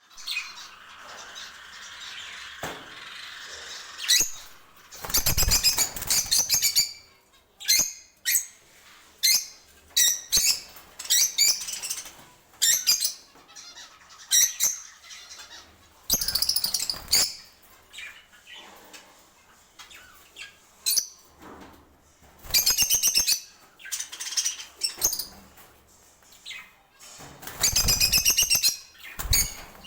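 Pet lovebirds chirping and squawking in short, shrill, repeated bursts, with several bouts of wing flapping.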